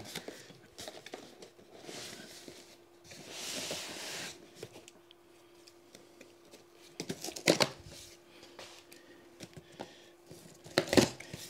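A cardboard box being worked open by hand: rustling and scraping with scattered clicks as the fasteners are prised out of the box. Two sharper snaps come about halfway through and near the end.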